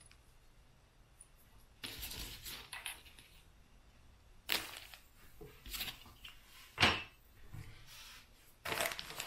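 Electrical cables with small plastic plug connectors being gathered up and put down on a workbench mat: a few scattered rustles and light clacks, the sharpest a short knock about seven seconds in.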